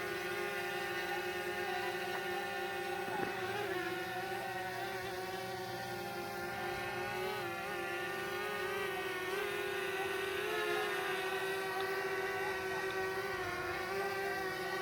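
Quadcopter drone hovering: a steady multi-tone propeller whine whose pitch wavers slightly as the motors adjust.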